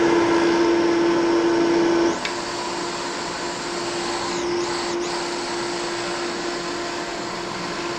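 Sunlar electric centrifugal forge blower running at full speed: a steady motor hum with a rush of air from the outlet. About two seconds in it gets noticeably quieter and then runs on steadily.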